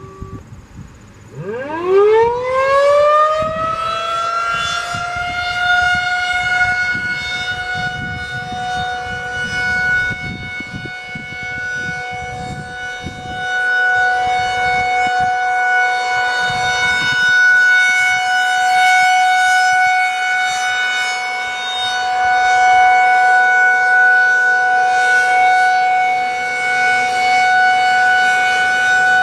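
Federal Signal 2001-SRN electromechanical outdoor warning siren, running on 48 volts DC, starts about a second in. It winds up quickly in pitch, then holds one steady tone, the Alert signal of a siren test. The loudness swells and fades slowly.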